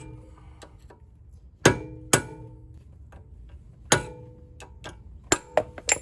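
Hammer blows on a steel brake rotor to knock it off the wheel hub, each hit ringing metallically. Three spaced strikes are followed by three quicker ones near the end.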